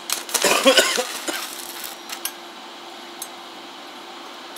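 Stick-welding electrode being tapped and scratched on steel to strike an arc: a loud, short crackling burst about a second long near the start, then a few faint clicks, over a steady hum.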